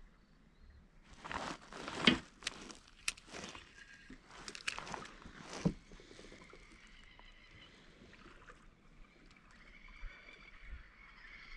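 Knocks and water sloshing against a plastic fishing kayak's hull, lasting a few seconds, with the loudest knock about two seconds in.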